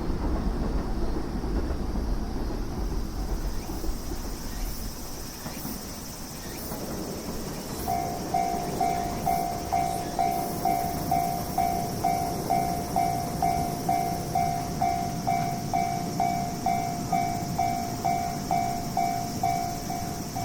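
A train's rumble dies away. About eight seconds in, a Japanese railway level-crossing warning bell starts ringing, a steady electronic ding repeated about twice a second: the crossing's signal that a train is approaching.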